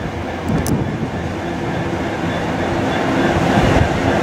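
Class 66 diesel-electric locomotive's two-stroke EMD V12 engine running as it approaches at the head of a freight train, growing louder as it draws near.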